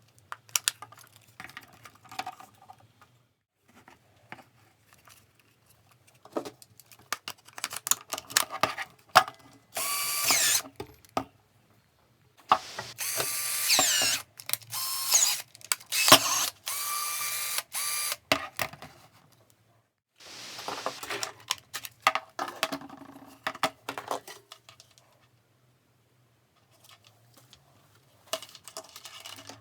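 Cordless drill running on its rebuilt 18650 lithium-ion battery pack, started and stopped in several runs of one to six seconds, its whine shifting in pitch as the speed changes. Clicks and rattles of handling come before and after the runs.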